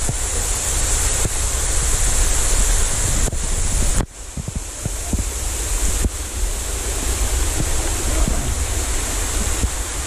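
Stream water rushing over rocks, with wind buffeting the microphone. The noise dips abruptly about four seconds in, then carries on.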